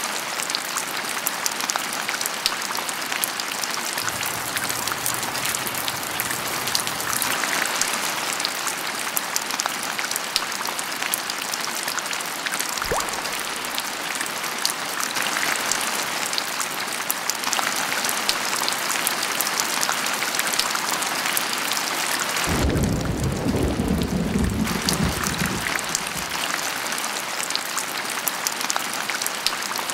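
Steady rain falling and pattering on hard surfaces, with a low rumble of thunder lasting a few seconds about three quarters of the way through.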